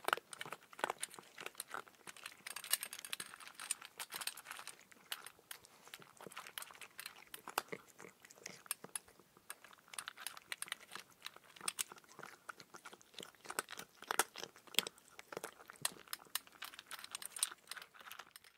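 Irregular crisp crunching and clicking, many small sharp cracks in quick uneven succession.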